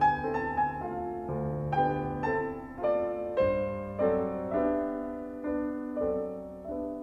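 Background piano music: a slow melody of struck notes that ring and fade, with new notes every half second or so.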